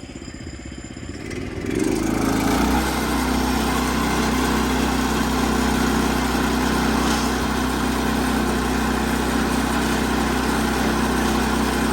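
Woodland Mills HM122 sawmill's gas engine speeding up from idle to full throttle about two seconds in, then running steadily at full speed with the band blade turning on the centrifugal clutch: a 15-second full-throttle run before the blade tracking is checked.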